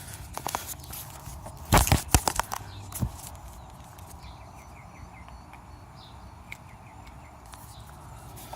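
Handling noise from the PCV valve and cap being fitted together: a loose cluster of sharp clicks and knocks about two seconds in, then only faint light ticks.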